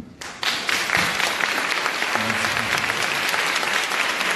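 Audience applauding. The clapping breaks out suddenly a moment in and goes on steadily.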